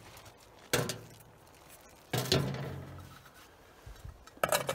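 Metal cooking pot on a wood stove, its water frozen solid, knocked and handled: two separate clunks, each ringing briefly, then a quick double clatter near the end as the lid goes on.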